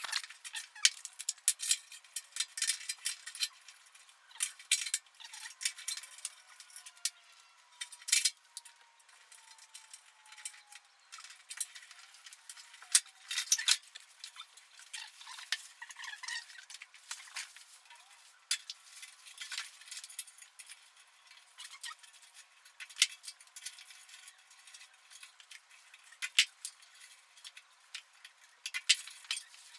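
Irregular light clicks and clinks of wire connectors and metal parts being handled on a furnace blower assembly as its control-board wiring is worked on.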